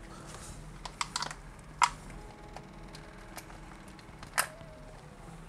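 Light clicks and clacks of computer parts being handled: a handful of short, sharp knocks, the loudest nearly two seconds in and another a little after four seconds.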